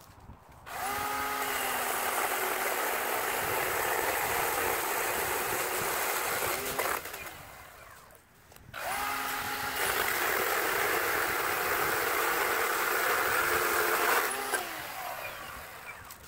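Ryobi P549 18V brushless cordless chainsaw making two cuts through a log: each time the motor whines up to speed, the chain runs through the wood for about six seconds, and the motor winds back down when the trigger is released.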